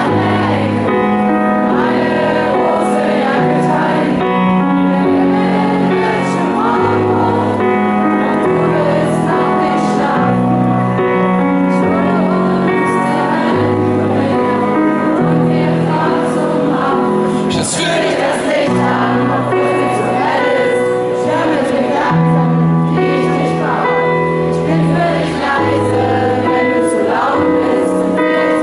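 Live pop-rock band music with a large crowd singing along, recorded from within the audience.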